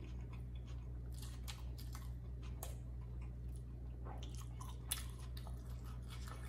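A person chewing a mouthful of McDonald's Prosperity burger with the mouth closed: irregular wet clicks and soft crunches over a steady low hum.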